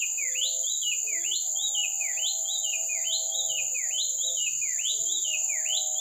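Babbler (pelanduk dada putih, the 'minta duit' bird) singing a long unbroken run of whistled notes, nearly two a second, each dipping in pitch and sweeping sharply back up.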